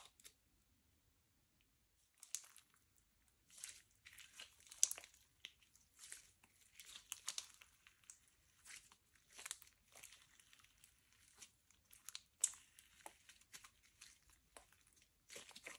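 Slime being mixed and worked by hand, giving an irregular run of clicks and crackles that starts about two seconds in and stops shortly before the end.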